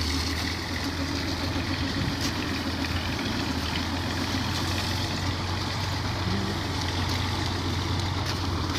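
A steady low hum under a wash of noise, like an engine idling.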